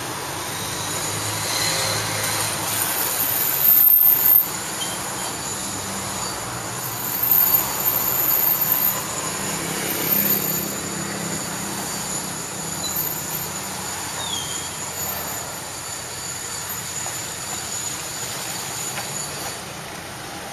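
Steady city street traffic noise, with louder swells about four seconds in, again from about seven to nine seconds, and near ten seconds as vehicles pass close by.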